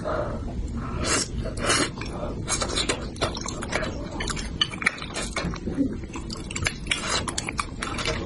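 Close-up eating sounds: chopsticks clicking and clattering against a metal bowl, with quick, irregular wet mouth noises of eating spicy braised bighead carp.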